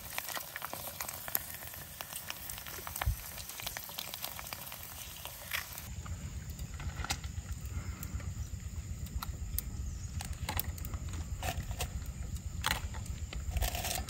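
Shrimp chips frying in hot oil in a frying pan, a dense sizzling crackle as they puff up. About six seconds in, a steady low rumble joins it.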